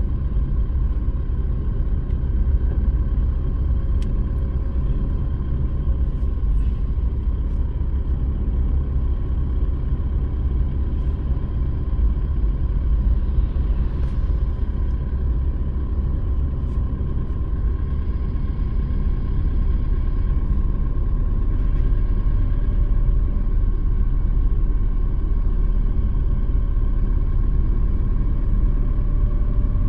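Steady low rumble of a car driving, heard from inside the cabin: engine and tyres running on a wet road.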